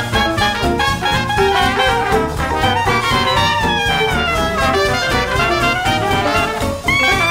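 Background music: jazzy swing with brass over a steady beat.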